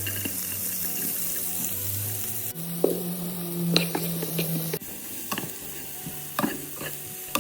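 Chopped onion frying in butter in a pan, a steady sizzle, with several sharp knocks of a utensil against the pan as it is stirred.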